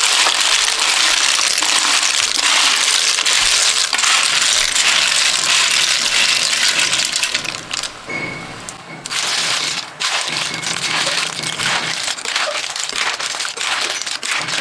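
Freshwater snails in their shells tipped into a wok of hot gravy, frying with a loud sizzle for the first several seconds. The sizzle drops away about eight seconds in, and the shells then click and clatter against the pan and each other as they are stirred with a metal spatula.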